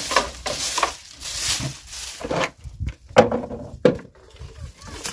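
Dry straw and brushwood stalks rustling and crunching as they are gathered up by hand, in uneven bursts, with two sharper cracks about three and four seconds in.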